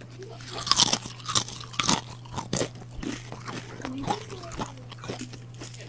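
Crunching of a Mamee Monster dry noodle snack being bitten and chewed, with several loud crunches in the first couple of seconds and softer chewing after.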